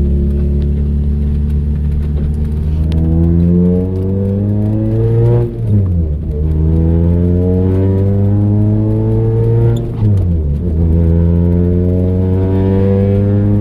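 2003 Toyota Celica GT-S's 1.8-litre four-cylinder engine pulling under acceleration, its pitch climbing steadily, then dropping sharply with a brief dip at each of two gear shifts.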